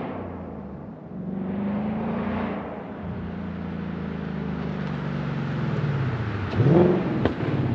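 2024 Mustang GT's 5.0 V8 exhaust, through a Steeda H-pipe with the active valves in track mode, pulling away: the note climbs, drops about a second in with a shift, climbs again, then falls slowly as the car eases off. Near the end the pitch dips and shoots back up sharply, the loudest moment.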